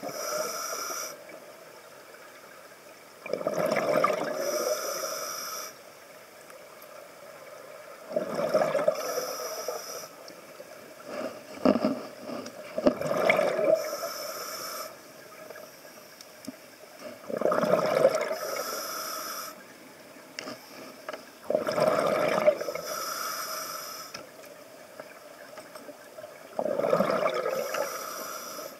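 Scuba diver breathing through a regulator underwater: about six breaths, each a gurgling rush of exhaled bubbles with the regulator's hiss, repeating every four to five seconds.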